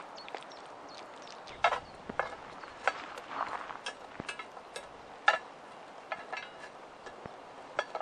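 Light, irregular clicks and taps of utensils: a spoon against a bowl, then wooden chopsticks knocking a metal frying pan as potato slices are turned one by one.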